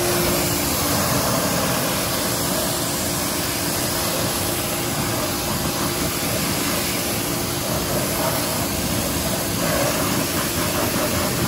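Pressure washer running, its jet spraying the foam-covered front wheel and tyre of a motorcycle to rinse off the wheel cleaner: a steady hiss of water over a steady motor hum, starting suddenly.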